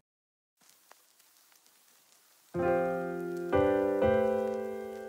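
Background piano music: after a quiet first half, sustained chords are struck about halfway in and again twice in quick succession, each ringing on and slowly fading.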